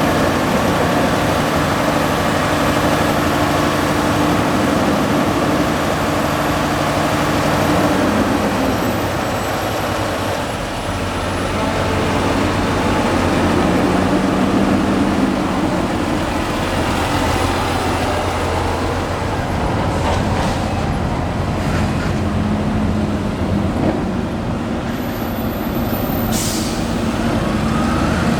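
Large diesel engines of farm machinery working at a corn silage harvest, running steadily under load. Their engine notes shift up and down in pitch several times, and there is one short sharp click near the end.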